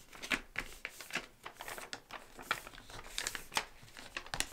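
Sheets of paper rustling and crinkling as they are folded and creased by hand into paper airplanes, in a run of short, irregular rustles.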